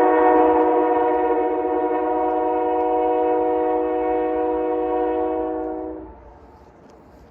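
Locomotive air horn sounding one long, steady blast of several notes at once, cutting off about six seconds in.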